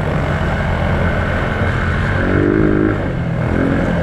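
Small petrol engine of an off-road vehicle running steadily, its pitch wavering slightly.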